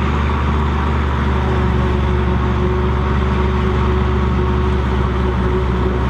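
New Holland self-propelled forage harvester chopping maize alongside a Case 2294 tractor towing the silage trailer: both engines running steadily under load, a continuous even drone with a steady hum that does not change.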